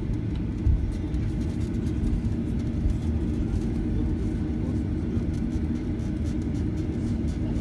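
Cabin sound of a Boeing 737-800 taxiing: its CFM56-7B turbofans run at low power under a steady low rumble from the wheels on the taxiway, with a brief bump less than a second in.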